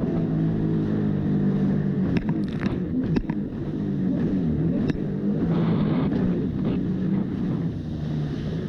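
Yamaha jet ski engine running at speed, its pitch dipping and rising a few times around the middle as the craft crosses the wake, with water rushing past, wind on the microphone and several sharp knocks of the hull hitting the waves.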